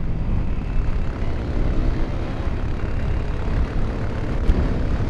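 Single-cylinder dual-sport motorcycle engine running steadily at road speed.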